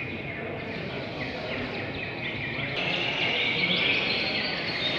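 Many caged contest songbirds chirping and singing at once, a dense chatter of quick high notes that grows louder about three seconds in.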